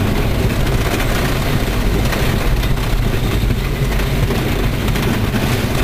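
GCI wooden roller coaster train running along its track at speed: a loud, steady rumble mixed with rushing air.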